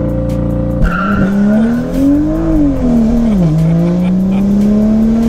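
Stage 2+ tuned BMW M2's turbocharged N55 inline-six with a catless downpipe, held at launch-control revs and then released: the revs drop as the car launches, climb hard, dip at an upshift about three seconds in, and climb again through the next gear, heard from inside the cabin. A brief tire squeal just after launch from a little wheelspin.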